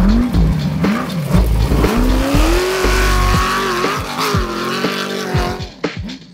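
Off-road race vehicle's engine revving up and down with the throttle, then climbing to a high, held rev, fading near the end.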